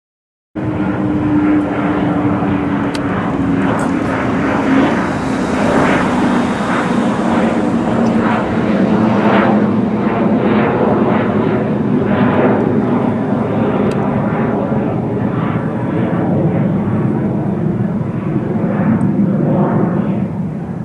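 Twin-engine fighter jet flying overhead: a loud, steady jet roar that starts abruptly, with a whine that falls in pitch over the first several seconds as it passes.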